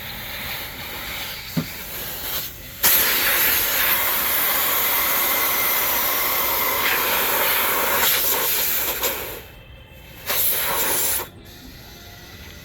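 Compressed air hissing into a motorcycle's rear tubeless tire to seat the bead. A softer hiss comes first. A loud, steady blast starts suddenly about three seconds in and runs for about six seconds. A shorter blast near the end cuts off abruptly. The bead has not yet seated.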